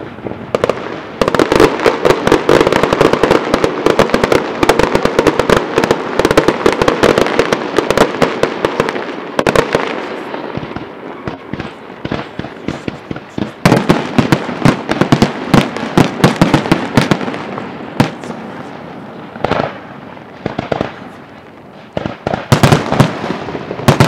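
Fireworks display: rapid runs of bangs and crackles beginning about a second in, thinning out twice and building again near the end.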